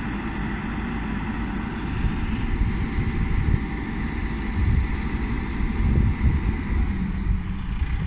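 Caterpillar 420E backhoe loader's diesel engine running, with the hydraulics working as the backhoe arm is raised. The engine sound grows louder and uneven from about two seconds in.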